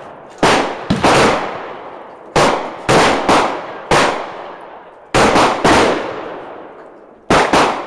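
Glock 27 .40 S&W subcompact pistol firing about a dozen shots in irregular groups, some in quick succession, each with a long fading echo. The pistol is cycling on its new slide without a hiccup.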